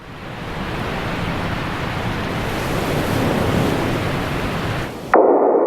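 Programme intro sound effects: a steady rushing noise that swells for about five seconds, then cuts off abruptly into a sharp ping-like hit that rings on and slowly fades.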